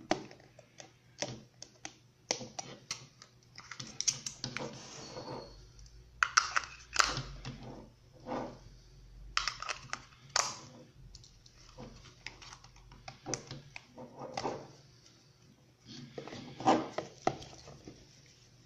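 Plastic clicks, knocks and rustles of a headlamp's battery box and fabric headband being handled, as rechargeable cells are fitted into the box and its lid is closed. The clicks come irregularly, with short bursts of rustling between them.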